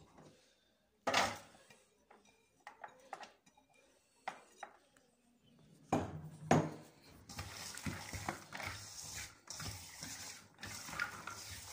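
Hand working inside a stainless steel mixing bowl: a sharp knock against the bowl about a second in and a few light clinks, another knock near six seconds, then steady rubbing and scraping as grated onion is worked around the bowl.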